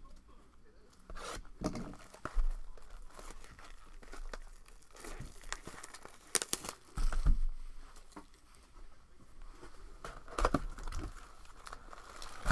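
Plastic wrapping being torn and crinkled off a sealed 2021 Bowman Draft baseball card box, with scattered knocks and taps of cardboard being handled as the box lid is opened.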